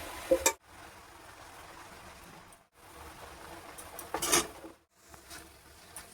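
A metal utensil clattering against cookware: a short clink about half a second in, then a longer scraping clatter about four seconds in, with a faint hiss between.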